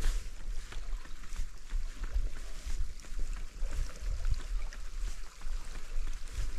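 Wind buffeting the microphone in uneven gusts, over a hiss of sea water washing on rocks.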